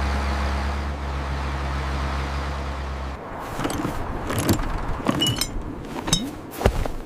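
A motor vehicle's engine running steadily, cutting off about three seconds in, followed by a run of sharp clicks, knocks and short squeaks, as cartoon sound effects.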